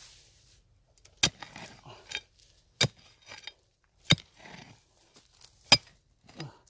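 A small hand mattock digging into stony ground. It strikes four times, about a second and a half apart, each blow a sharp clink of the metal head on stone, with softer scrapes and knocks of soil and rock between the blows.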